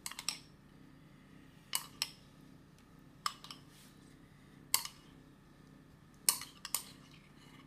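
Metal spoon clinking against a ceramic bowl while spooning out marinade: sharp, briefly ringing clinks, often in quick pairs, every second or so.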